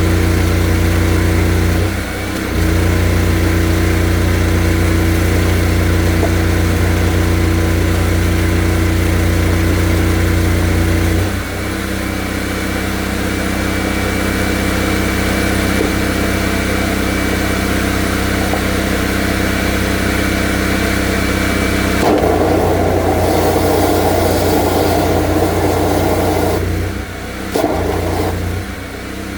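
Drain jetter's engine running steadily under load, its note dropping and settling a little lower about eleven seconds in. A rushing hiss joins it from about two-thirds of the way through for several seconds.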